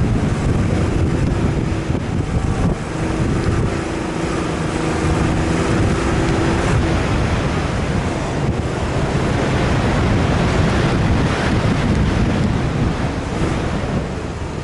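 Wind buffeting the microphone, loud and steady, with a faint steady hum under it during the first half.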